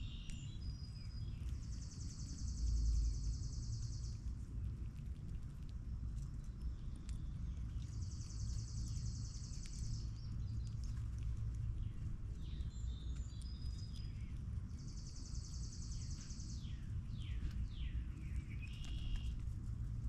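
Backyard ambience: a dry, high trill of about two seconds repeats roughly every six to seven seconds, with a few short falling bird chirps and a steady low rumble. Faint scattered clicks come from a fox squirrel eating peanuts close by.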